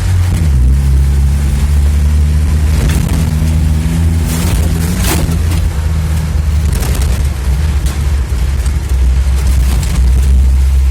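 UAZ off-roader's engine running while driving, its pitch shifting with speed, with a few sharp knocks and rattles from the vehicle about halfway through.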